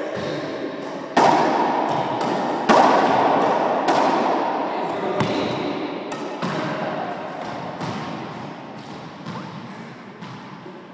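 A racquetball struck and hitting the walls and floor of an enclosed court, a series of sharp smacks each with a booming echo. The two loudest come about one and three seconds in; after that the bounces come further apart and get quieter.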